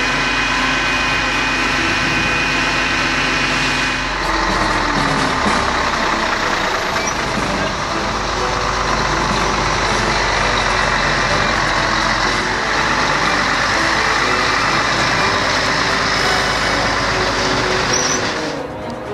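Heavy tree-spade truck's diesel engine running, with steady tones for the first few seconds; about four seconds in the sound changes abruptly to a fuller, rougher engine and road noise as the loaded truck drives.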